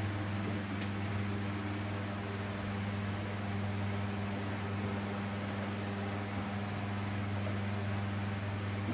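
Steady low electrical hum from running mains-powered equipment, with a few faint ticks.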